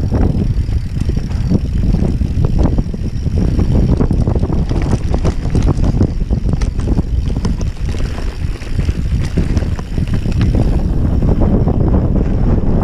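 Wind buffeting the camera's microphone as a Banshee Spitfire mountain bike descends a rough dirt trail, with steady tyre noise and frequent rattling and clattering knocks from the bike over bumps.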